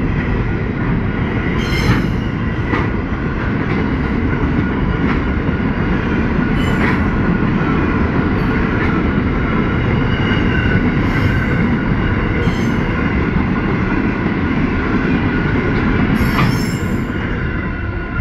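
Container wagons of a freight train rolling past at speed, a steady rumble of wheels on rail broken by irregular sharp clacks at the rail joints and crossing, with a thin steady squeal from the wheels. The sound falls away near the end as the last wagon passes.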